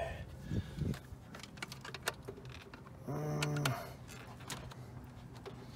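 Scattered light clicks and taps of plastic engine-bay parts being handled, with a brief hummed voice about three seconds in.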